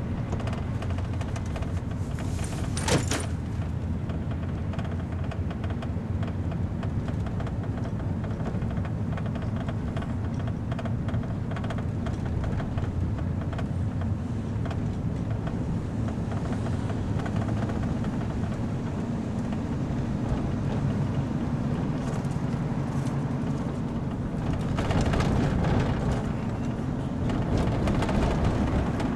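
Steady low rumble of engine and road noise inside the cabin of a moving van. A brief sharp sound comes about three seconds in, and the road noise grows louder near the end.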